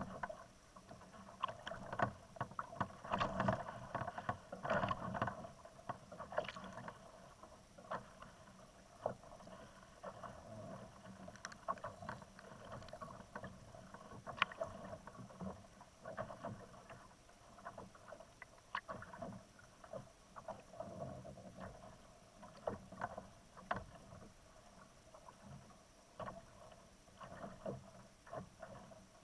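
Small waves slapping and gurgling against a plastic kayak hull in irregular little splashes, busier in the first few seconds.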